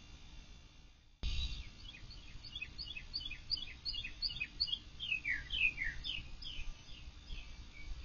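A songbird singing: a quick run of short, repeated down-slurred notes, about three a second, then several longer falling whistles. The sound cuts in abruptly about a second in.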